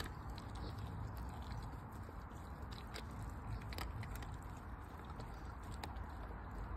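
German shepherd chewing raw chicken, with a few short, sharp crunches among the wet chewing.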